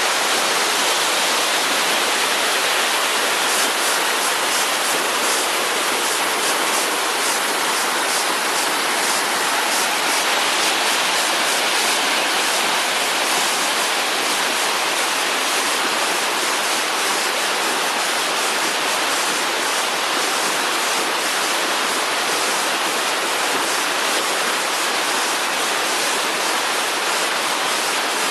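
Waterfall pouring steadily, a continuous rush of falling water.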